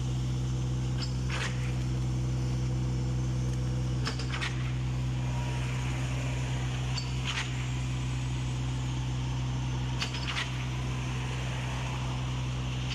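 Truck-mounted concrete pump running steadily, its diesel engine holding a constant drone, with short sharp knocks every few seconds while it pumps concrete through the extended boom.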